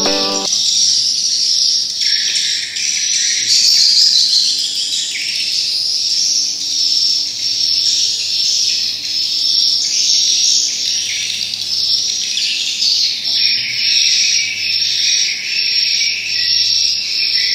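Edible-nest swiftlets chirping: a dense, continuous twittering of many high calls.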